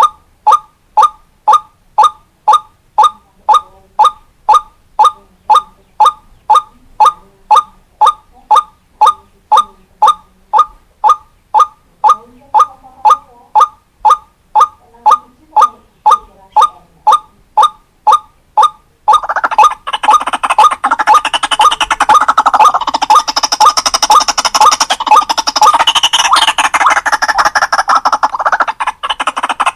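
White-breasted waterhen call played as a lure: short, identical notes repeated evenly about two and a half times a second. About two-thirds of the way in it gives way abruptly to a dense, louder, continuous sound.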